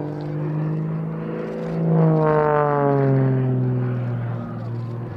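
Extra EA-330SC aerobatic plane's six-cylinder engine and three-blade propeller droning in flight, a loud buzz that swells about two seconds in and then slides steadily lower in pitch.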